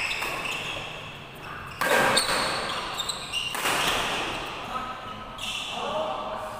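Badminton rally: rackets striking the shuttlecock, with the loudest hit about two seconds in, and players' shoes squeaking on the court mat, echoing in a large hall.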